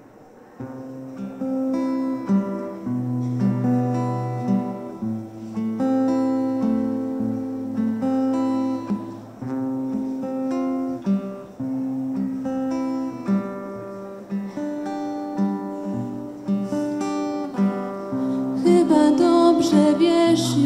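Live acoustic band playing an instrumental song intro: acoustic guitar with long held notes over it. It starts about half a second in and gets louder and brighter near the end.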